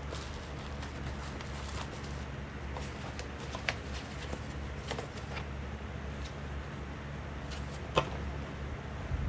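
Graphics-card packaging being handled and opened: soft rustling with scattered crinkles and clicks, and one sharp click about eight seconds in, over a steady low hum.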